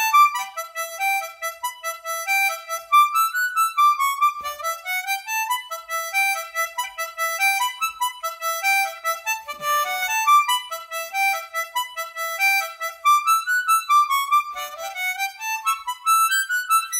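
Hohner Special 20 ten-hole diatonic harmonica in D playing a quick reel melody solo, a steady stream of short notes with many repeated ones. In the last few seconds the tune climbs into the higher register.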